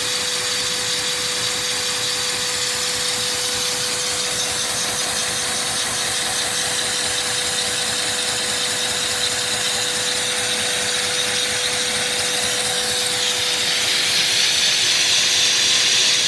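Four-cylinder oscillating LEGO vacuum engine running fast on suction from a vacuum-cleaner hose: a steady rush of air through its valves with a fast, even clatter of the plastic parts, over a steady hum. The hiss grows louder over the last few seconds.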